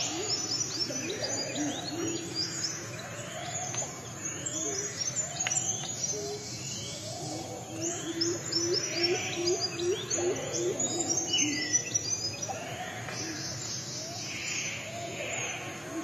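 A chorus of several wild birds: many short high chirps and whistles overlapping, with a lower call repeated in quick runs, over steady forest background sound.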